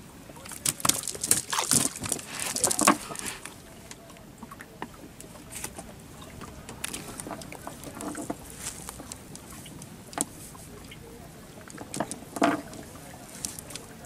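A wet cast net being handled on a wooden boat deck while fish are taken from it: rustling and clattering clicks, densest in a flurry between about one and three seconds in, then scattered, with a couple of sharp knocks near the end.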